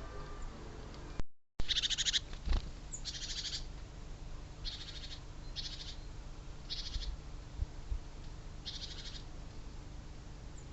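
A bird at the feeder giving a short, buzzy, high-pitched call, repeated about six times at roughly one-second intervals.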